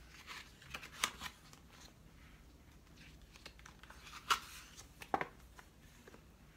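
Pages of a hardcover picture book being turned and handled: soft paper rustling with a few sharp page flicks, the loudest a little past four seconds in.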